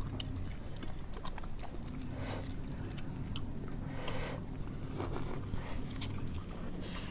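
Close-up chewing and biting of food, with many small crunchy clicks and moist chewing noises, over a steady low hum.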